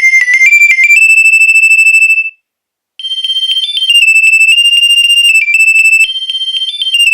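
Nokia 2300 mobile phone playing ringtones: a quick rising run of high electronic notes ends on a held note, then, after a half-second break, another melody of high beeping notes begins.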